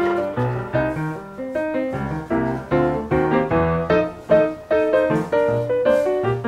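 Background piano music, a melody of quick notes changing several times a second.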